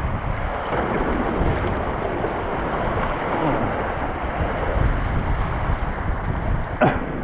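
Rushing river water around a kayak's bow as it runs a small Rio Grande rapid, with wind buffeting the microphone. A single sharp knock near the end.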